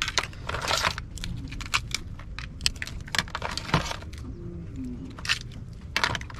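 Boiled swimming crabs' shells cracking and snapping as their carapaces are pried off by hand: an irregular run of sharp clicks and crunches.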